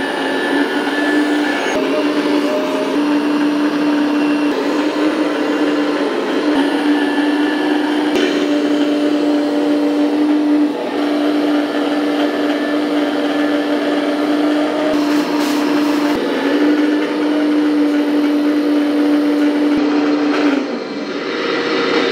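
Hydraulic pump of a 1/14-scale radio-controlled Caterpillar 374 excavator running with a steady whine while the grab is worked. The tone breaks off briefly a few times and drops away near the end.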